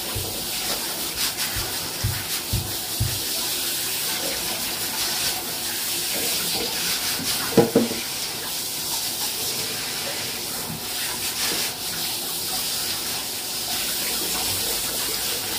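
Handheld shower head spraying water onto a wet puppy in a bathtub: a steady hiss of running spray. A few soft thumps come in the first three seconds, and a brief louder sound about halfway through.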